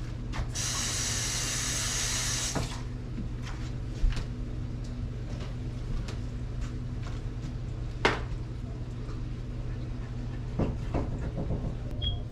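Kitchen cooking sounds: a steady hiss lasting about two seconds near the start, then a low steady hum with a couple of sharp knocks.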